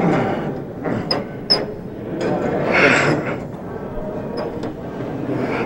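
Gym weight-training equipment being worked: a cable machine and weights giving a handful of sharp metallic clicks and knocks over the hum of a busy gym.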